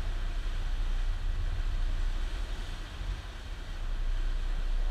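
Steady low rumble of a powerboat running underway, heard from on board, with a hiss of wind and water above it.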